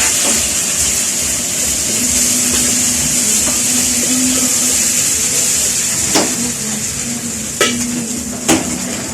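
Chicken fried rice sizzling in a hot wok with a steady hiss as it is stir-fried, a faint low hum underneath. A metal spatula strikes the wok three times in the last few seconds.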